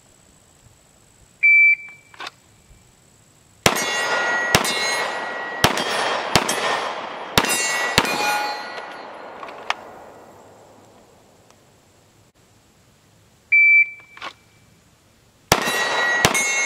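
A shot timer's short high beep, then six pistol shots from a Glock 19 Gen 5 in a little over four seconds, each followed by the ringing of a struck steel target, the rings fading away after the last shot. A second timer beep comes near the end, and the next string of shots and steel rings starts just before the close.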